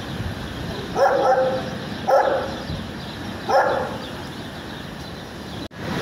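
A dog barking three times, a second or so apart.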